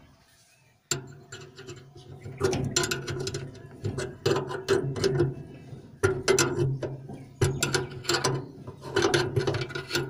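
A wrench tightening the bolt on a washing machine's pulley, clicking in repeated strokes that start about a second in.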